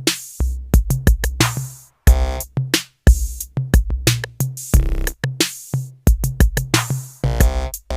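Background music with a drum-machine beat, cutting to silence briefly about two and three seconds in.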